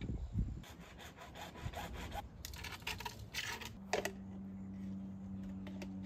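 Plastic downpipe and fittings scraping and rubbing as they are handled and pushed together, a quick run of scrapes over the first few seconds. About four seconds in, a steady low hum starts and carries on.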